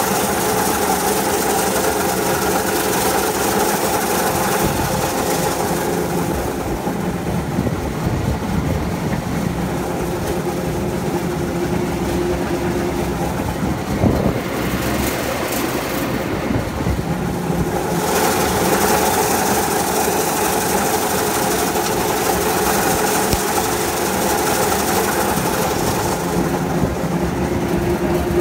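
Landini Vision 105 tractor's diesel engine running steadily while it pulls and drives an İrtem 1200-litre fertilizer spreader, spreading fertilizer across a field. There is one short knock about halfway through.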